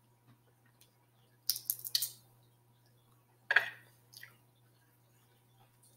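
Close-miked eating sounds from chewing and peeling boiled seafood: a few short, sharp wet smacks and crackles about a second and a half to two seconds in, and again at about three and a half seconds, over a faint steady hum.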